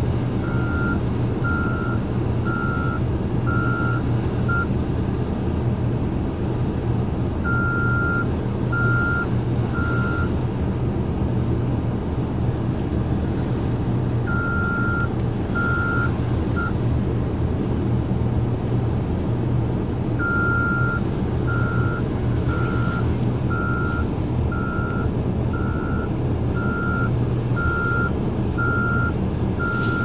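Caterpillar wheel loader's back-up alarm beeping about one and a half times a second, in several runs with pauses between, as the loader reverses while plowing snow. Under it runs a steady low engine drone.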